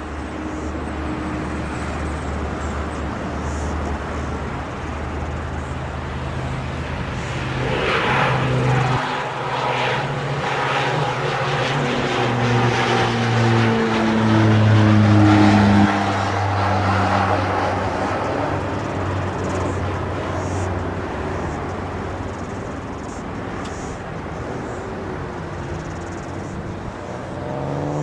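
Boeing 757-200's Rolls-Royce RB211 turbofan engines running at low power on the ground, a steady low hum with whining tones that rise and fall in pitch, loudest about fifteen seconds in.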